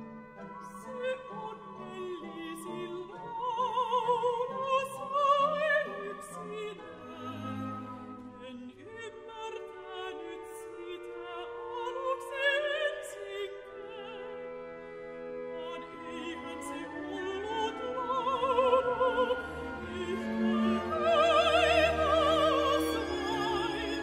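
A mezzo-soprano sings long phrases with a wide vibrato over a full orchestra. Voice and orchestra swell to their loudest near the end.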